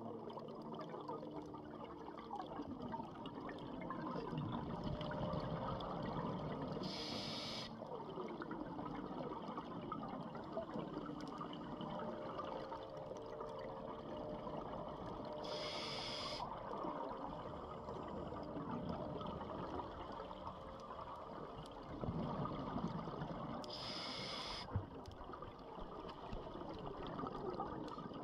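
A scuba diver breathing through a regulator underwater. About every eight seconds a brief hiss of inhalation comes, four times in all, and between them runs a longer bubbling rush of exhaled air.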